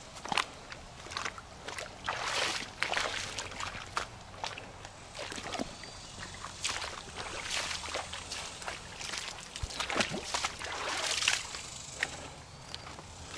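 Irregular footsteps over rocky, root-strewn creek bank, mixed with water sloshing in a shallow creek.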